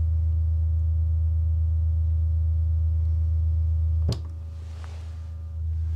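80 Hz sine test tone played through a Harbinger VRS18 subwoofer, a steady low hum with faint overtones. About four seconds in there is a short click and the tone drops clearly in level, then swells back up near the end.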